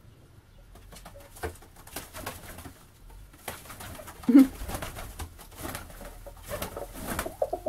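Domestic pigeons cooing, with wing flaps and scuffling as one pigeon drives the others away. The loudest sound is a short coo about four seconds in.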